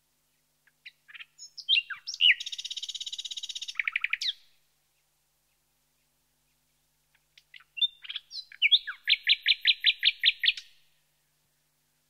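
Common nightingale singing two separate phrases a few seconds apart. The first is a few sharp notes leading into a fast buzzing trill. The second is short whistled notes ending in a loud run of repeated notes, about six a second.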